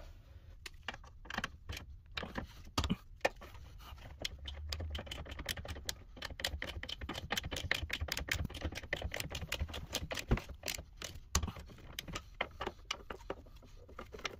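Ratchet wrench clicking in quick runs of several clicks a second as a nut on the front steering knuckle is tightened for torquing to 43 ft-lb.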